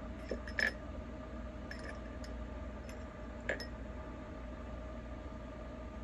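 A few light clicks and clinks of small hard makeup items being handled and set down, the loudest just after the start and another about three and a half seconds in, over a steady low background hum.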